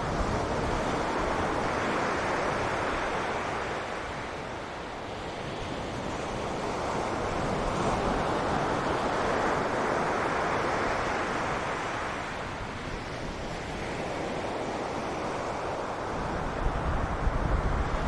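Ocean surf washing on a beach, swelling and easing in slow waves, with gusts of wind buffeting the microphone near the end.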